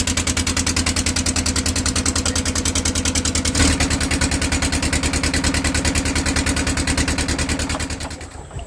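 A boat's small engine running with a steady rapid beat, fading away shortly before the end.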